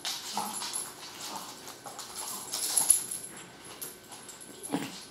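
Irregular clicking and scrabbling of an Amstaff's and a chihuahua's claws on a hardwood floor as the dogs move about, with a short thud near the end.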